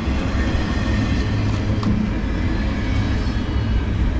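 Empty intermodal well cars of a Norfolk Southern freight train rolling slowly past as the train brakes toward a stop. The wheels make a steady low rumble on the rails, with faint thin high squeals now and then.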